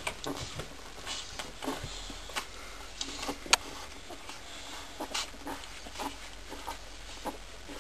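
Two-week-old boxer puppies making short, irregular squeaks, whimpers and grunts, with a single sharp click about three and a half seconds in.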